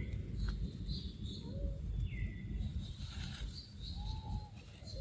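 Short animal calls that fall in pitch and then hold briefly, repeating about every two to three seconds, mixed with brief high chirps over a low rumble.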